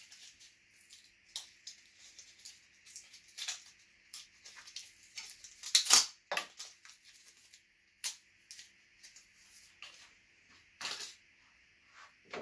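Light handling noises: scattered clicks, knocks and rustles as a G-scale model railway turnout is shifted about on a drill press table, with a louder knock about six seconds in, over a faint steady hiss.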